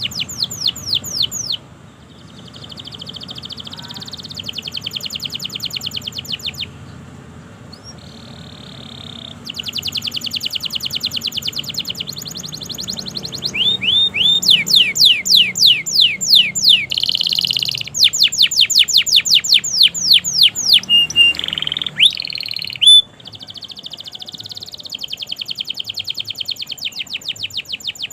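Domestic canary singing long rapid trills: phrase after phrase of quick repeated high notes, each phrase a different note type, with short breaks between them.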